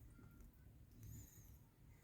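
Wood fire in a fireplace crackling faintly, with a few soft pops and a short high hiss over a low steady rumble.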